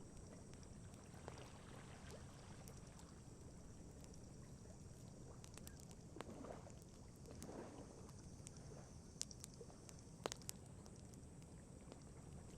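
Faint wood campfire crackling, with a few sharp pops, the loudest about nine and ten seconds in, over a low steady wash of lake water lapping.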